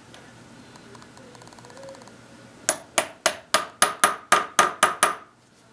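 A hammer striking steel at the handwheel shaft of a Hendey lathe's apron: about ten quick, ringing blows at roughly four a second, starting about halfway through, to knock loose a tight part that a puller can't reach.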